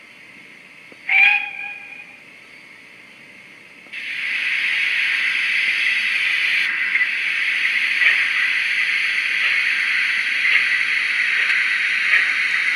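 Sound-decoder recreation of a GWR 14xx steam tank engine, played through the model locomotive's small loudspeaker. A short whistle sounds about a second in. From about four seconds a loud, steady hiss of escaping steam starts abruptly and continues.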